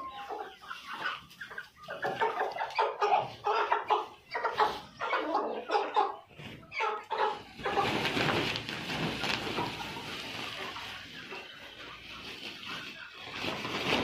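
Kuroiler FFG chickens squawking and clucking as a cockerel is caught: a fast run of loud calls, then about eight seconds in a rougher stretch of flapping and rustling as the bird goes into a cloth sack.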